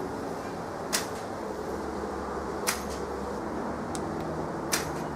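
Bow fitted with rubber string silencers being shot: only short, sharp snaps are heard, three of them about two seconds apart, over a steady low hum. The release is really quiet, damped by the string silencers.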